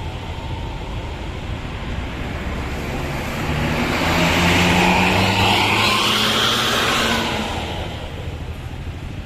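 A bus driving past: its engine hum and tyre rush grow loud about four seconds in, then fade after about seven seconds.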